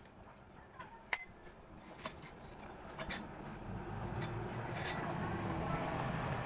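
Light metallic clinks and taps as the finned aluminium cylinder block of a Honda Revo engine is worked off its piston and studs. A low rumbling background noise slowly builds from about halfway through.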